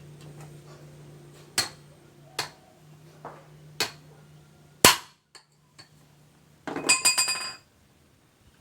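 Five sharp metallic knocks, a few tenths of a second to a second apart, the loudest about halfway through, then a short ringing clatter of metal near the end, over a faint low hum.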